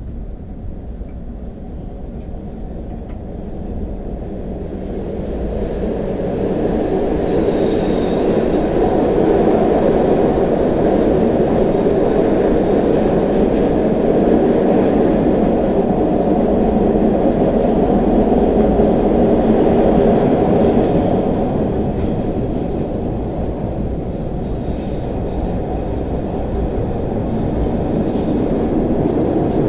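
MBTA Orange Line Hawker Siddeley 01200-series subway train running on the rails, a loud, steady rumble of wheels and running gear. It grows louder over the first several seconds, eases a little past twenty seconds in, then builds again.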